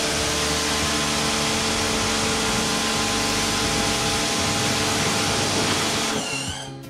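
Electric pressure washer running, a steady motor hum under the hiss of its water jet spraying the pavement. The spray stops about six seconds in.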